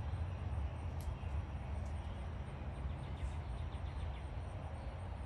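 Steady low rumble of distant highway traffic, with a few faint bird chirps.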